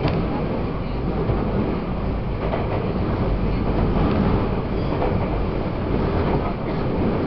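Taiwan Railways EMU800 electric commuter train running, heard from inside the carriage: a steady rumble of wheels and running gear on the track, with a few faint clicks.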